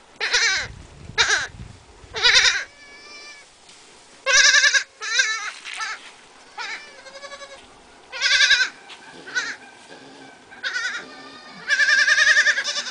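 Goat kids bleating again and again: about a dozen short, quavering bleats from more than one kid, some loud and close, others fainter, with a longer loud bleat near the end.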